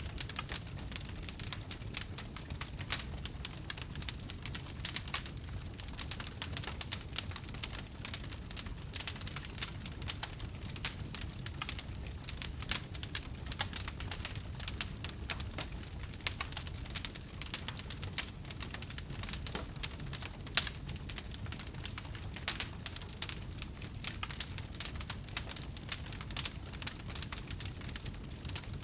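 Wood fire burning, crackling with a dense stream of small irregular snaps and pops over a low rumble.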